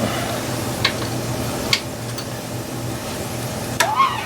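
Two light metallic clicks about a second apart, from nuts and tools being handled, over a steady background hum.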